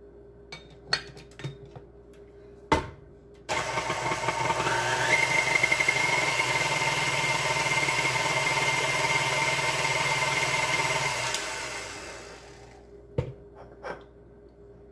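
KitchenAid Artisan stand mixer switched on with a sudden start about three and a half seconds in, its motor whine rising to a steady speed and running for about eight seconds before winding down. Several clicks and a sharp knock come before it starts, and two knocks after it stops.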